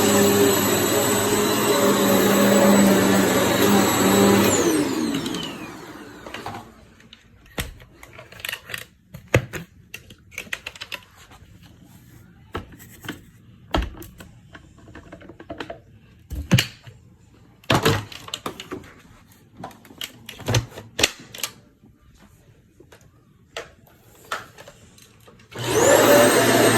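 Hoover EliteSwivel upright vacuum cleaner running, then switched off; its motor winds down with a falling whine about five seconds in. Scattered clicks and knocks follow. Near the end the vacuum is switched back on and its motor spins up with a rising whine.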